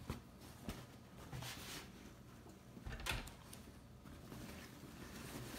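Scattered light knocks and rustling from handling a PC case and its packaging during unboxing, with the sharpest knock about three seconds in.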